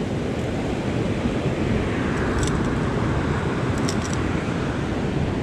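Surf washing over rocks and wind buffeting the microphone: a steady rushing rumble, with a few faint light clicks about halfway through.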